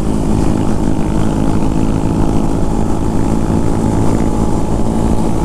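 Motorcycle engine running at a steady speed on the ride, its pitch holding even.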